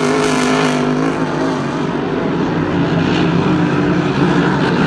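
Several Grand Prix hydroplanes' supercharged V8 engines running flat out at racing speed, heard together as a steady, multi-toned drone whose pitch wavers slightly as the boats run down the course.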